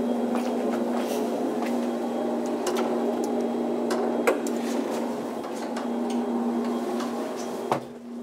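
Manual swing landing door of a DEVE hydraulic elevator: its latch clicks sharply as the door is pulled open about four seconds in, and the door thuds shut near the end. Footstep clicks, with a steady hum throughout.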